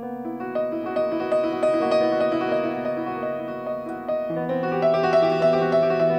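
Grand piano playing a jazz passage built on a repeated figure of about three notes a second in the middle register. A deeper held note comes in about four seconds in and the playing grows a little louder.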